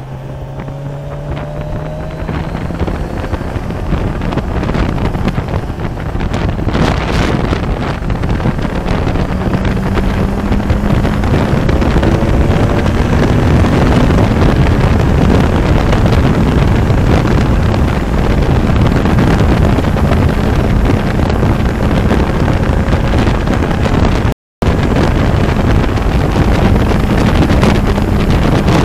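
Kawasaki Ninja 1000SX's inline-four engine on its stock exhaust, pulling along at road speed with its note climbing in a few slow rises, under heavy wind rush on the microphone that grows louder as speed builds. The sound cuts out for a moment about three-quarters of the way through.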